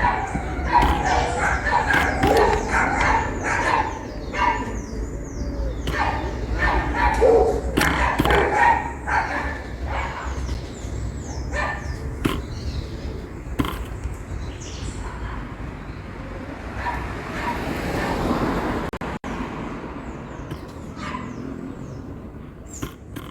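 A dog barking now and then amid short, repeated bird calls, some with quick rising and falling pitch, over a low rumble that fades about halfway through.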